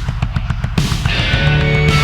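Loud heavy rock music: fast, evenly spaced drum hits, then a held chord of many sustained notes comes in just under a second in.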